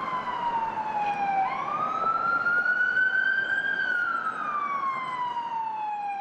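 Emergency vehicle siren in a slow wail: its pitch falls, sweeps back up and falls again, each swing taking several seconds. Under it runs a steady hiss of city traffic.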